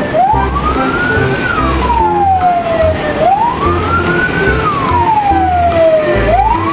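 Toy tow truck's electronic siren wailing, one tone rising and falling in slow cycles about every three seconds, over background music with a steady bass beat.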